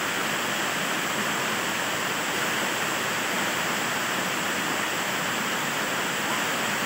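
Small waterfall and cascading stream rushing steadily over rocks.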